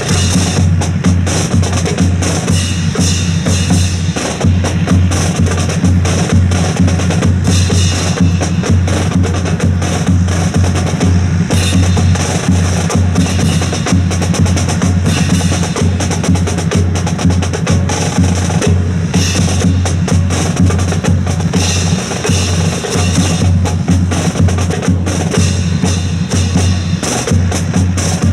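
Percussion-led music with a steady drum beat and sharp wood-block-like clicks.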